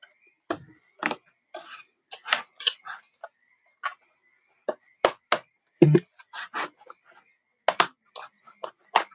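Plastic snap clips on an Asus TUF Gaming F15 laptop's bottom panel clicking and popping loose as a plastic card is worked along the seam. It is an irregular string of sharp clicks, with the loudest snap about six seconds in.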